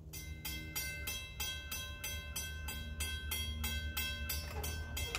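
Railroad grade-crossing warning bell starts ringing, a steady clang about three strikes a second, as the crossing signals activate for an approaching train.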